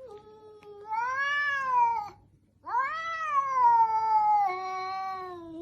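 Domestic cat giving two long, drawn-out meows, each rising and then falling in pitch; the second lasts over three seconds.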